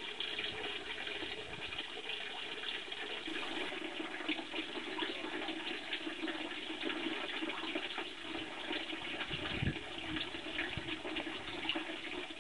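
Steady splashing of water at the surface of a small koi pond, from koi thrashing while they spawn, with a few louder splashes along the way.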